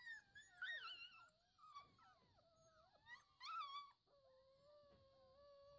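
Brittany puppies whining, high cries that slide up and down and overlap one another, then one long steady whine held from about four seconds in.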